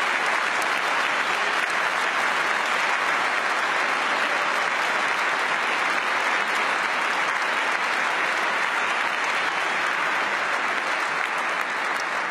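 Large audience applauding steadily, a dense sustained clapping that eases slightly near the end.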